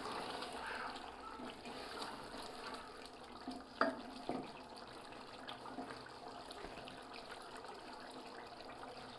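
A wooden spoon stirs chicken pieces through simmering gravy in a large aluminium pot, the liquid sloshing and bubbling. The spoon knocks lightly against the pot twice, about four seconds in.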